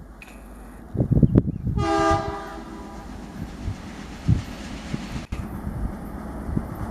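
Diesel locomotive horn sounding once, briefly, about two seconds in: a chord of several tones that fades within about a second, over the steady rumble of a passing train.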